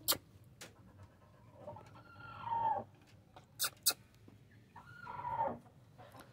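A rooster crowing twice, about three seconds apart, each crow about a second long and falling at the end. There are a few sharp clicks near the start and between the crows.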